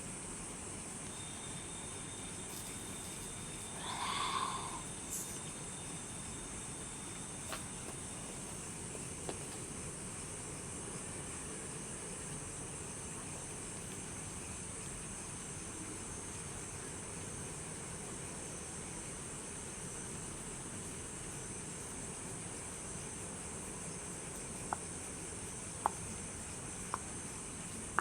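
Steady chirring of night insects such as crickets over a soft hiss, as in a night-time nature ambience. A brief louder sound rises about four seconds in, and a few sharp clicks come near the end.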